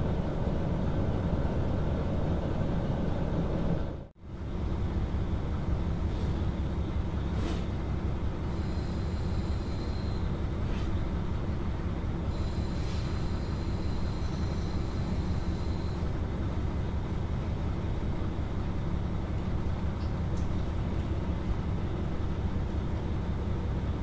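Steady low rumble of a KiHa 40 diesel railcar's engine, heard from aboard. The sound cuts out abruptly for a split second about four seconds in, then carries on as before.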